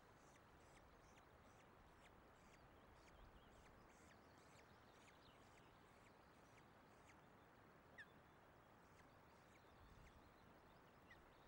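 Faint steady hiss of wind and rain on the nest microphone, with a few thin, high, falling peeps from the osprey chicks; the clearest comes about eight seconds in.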